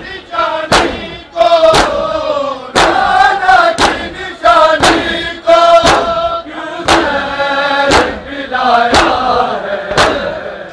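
Matam: a crowd of men chanting a lament in unison while beating their chests together. There is one sharp slap about every second, in time with the chant.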